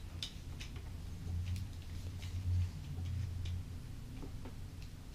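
Irregular small clicks and taps of hard plastic as a GoPro Karma Grip is worked and unlocked out of its outer casing, over a low hum.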